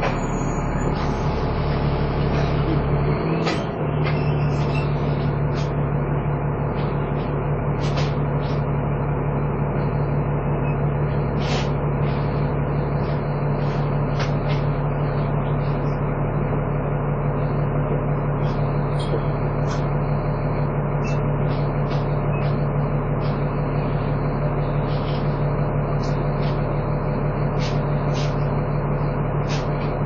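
Dennis Trident 2 double-decker bus under way, heard from inside: its engine and drivetrain running hard at a steady pitch with the whining 'hoover' sound. The sound dips briefly about three and a half seconds in, and scattered light clicks and rattles sound throughout.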